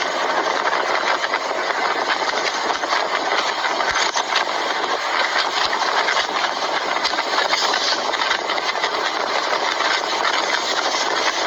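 Motorcycle engine running steadily at idle, a dense, even mechanical clatter.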